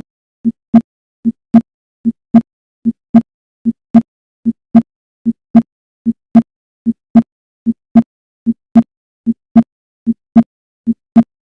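Heart sounds at the accessory (Erb's point) focus, third left intercostal space, as heard through a stethoscope bell: a steady lub-dub, the first sound (atrioventricular valves closing) and the second (semilunar valves closing), repeating about 75 times a minute with silence between beats.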